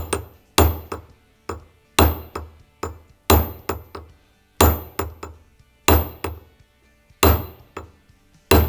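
Steel hammer striking a sight punch to drift a pistol's rear sight sideways in its dovetail: eight sharp metallic blows a little over a second apart, each ringing briefly, with lighter taps between. The sight is stuck tight, and the padded vise jaws holding the slide soak up much of each blow, as the gunsmith judges.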